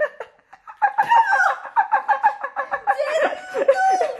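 A young woman's high-pitched shrieking, cackling laughter in quick rapid pulses, starting about a second in, with falling squeals near the end: her reaction to being splashed with water.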